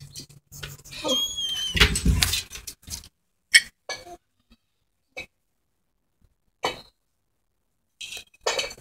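A small caged pet gives a short, high, squeaky call about a second in, among scattered knocks and clicks.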